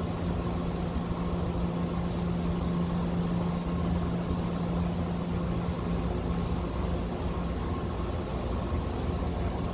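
Steady low mechanical drone over a wash of street noise, with one constant low tone that does not change.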